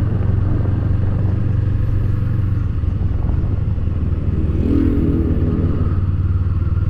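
Kawasaki Eliminator SE motorcycle's 451 cc parallel-twin engine running steadily at low revs, with no revving.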